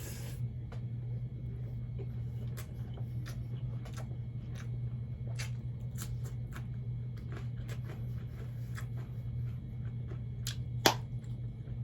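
Close-miked chewing and wet mouth clicks of someone eating fried catfish with rice, as scattered short clicks over a steady low hum. One sharper, louder click comes near the end.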